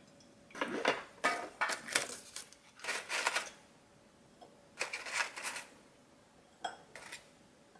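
Paper liners crinkling and rustling in a tin of butter cookies as cookies are lifted out one by one, in about five short bursts.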